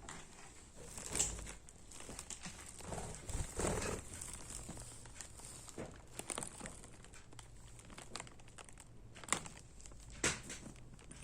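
Budgie playing with hair clutches: scattered light clicks, taps and rustling, with a few sharper clacks about a second in and near the end.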